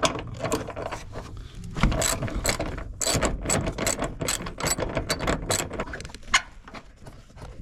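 Hand socket ratchet clicking in quick runs as a bolt is turned out.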